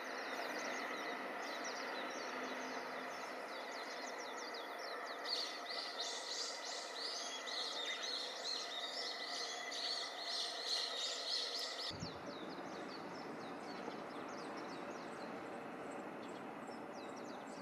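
Outdoor ambience with many small birds chirping, thickest from about five to twelve seconds in, over a steady high hum. About twelve seconds in the background changes abruptly: the hum stops and a low noise comes in.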